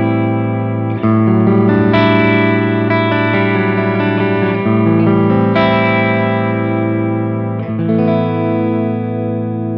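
Harley Benton Fusion II electric guitar played clean through an Axe-FX III modelling a Fender Princeton amp: several chords strummed and left to ring, the last one held and slowly fading near the end.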